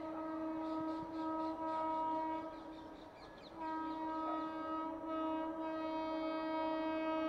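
Indian Railways locomotive horn sounding two long blasts: the first lasts about three seconds, then after a half-second break a second, slightly louder blast is held.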